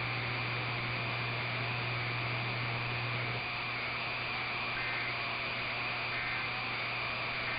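Steady hiss of weak, band-limited radio reception with a faint constant whistle and a low hum that drops away about halfway through. In the second half, short faint two-tone data bursts repeat about a second apart, the end-of-message signal of an Emergency Alert System test.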